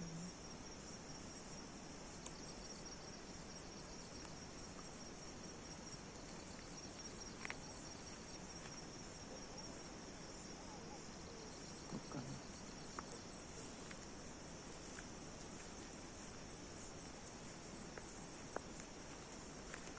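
Crickets chirping in a steady, high, pulsing trill, with a few faint scattered clicks and knocks.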